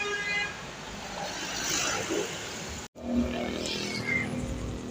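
Road traffic passing close by: a vehicle rushes past about two seconds in, the sound cuts out completely for an instant just before three seconds, then a steady engine hum and another vehicle rushing past.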